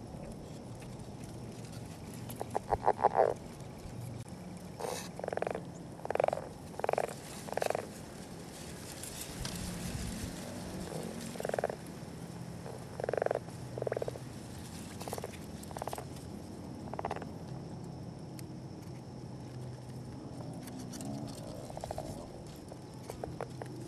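Northern leopard frogs giving courtship calls: one rapid rattling snore about two and a half seconds in, the loudest sound, followed by a scattering of short, low grunts spaced roughly half a second to a few seconds apart.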